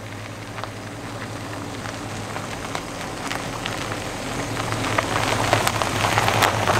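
A car rolling slowly over a gravel lane, its tyres crunching and crackling on the stones. The crunching grows louder and denser over the last few seconds as the car comes near, with the low steady hum of its engine underneath.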